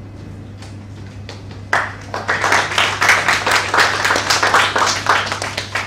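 Audience applauding, starting about two seconds in and fading out near the end.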